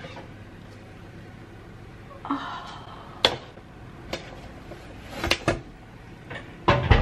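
A metal baking tray of biscuits is taken out of the oven and set down on a glass cooktop: a few sharp knocks and clicks of metal, with the loudest thump near the end.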